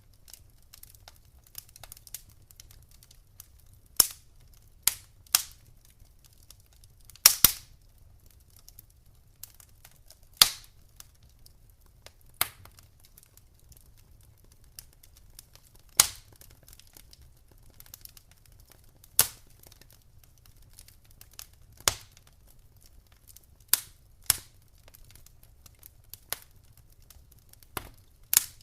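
Wood fire in a fireplace crackling: sharp pops and snaps every second or few, some in quick clusters, over a faint low rumble of the flames.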